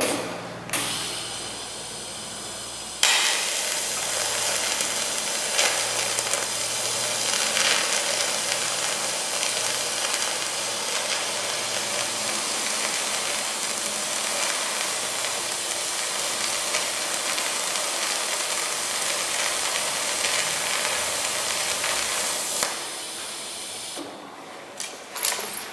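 TIG welding arc with a tungsten electrode fusing thin metal plate without filler wire: a steady, even hiss that starts suddenly about three seconds in and cuts off shortly before the end. A softer hiss comes before the arc starts.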